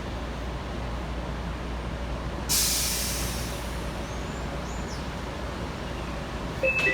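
AirTrain JFK people-mover car with a steady low hum while standing at a station. About two and a half seconds in there is a sudden hiss of released air that fades over a second or so. Near the end a two-tone electronic door chime begins, ahead of the doors closing.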